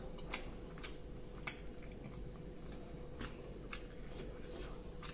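Eating noises at a low level: small sharp clicks at an uneven pace, a little under two a second, from mouth and hands at a meal, over a faint steady hum.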